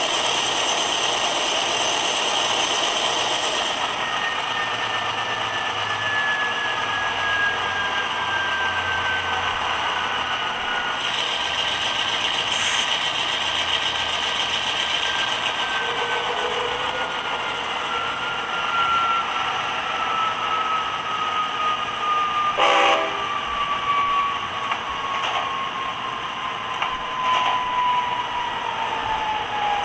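Diesel locomotive sound from an ESU LokSound decoder in an HO-scale GE Dash 9 model, played through a small Bowser dual cube speaker: the engine runs steadily with a high whine that falls slowly and evenly in pitch. A sharp click comes about 23 seconds in, with a few fainter ticks after it.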